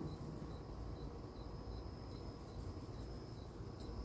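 Crickets chirping: an even run of short chirps, about two to three a second, over a steady high trill.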